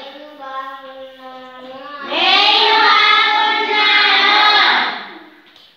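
Schoolchildren singing in unison. A single child's voice holds a sung note, then the whole group joins in loudly about two seconds in and stops about five seconds in.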